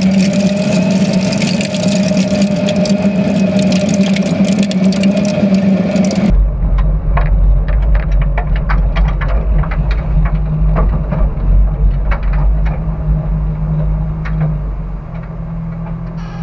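Rally car's engine running at low revs as the car rolls slowly across gravel. About six seconds in, the sound turns dull and boomy, with scattered clicks, and it gets quieter near the end as the car comes to a stop.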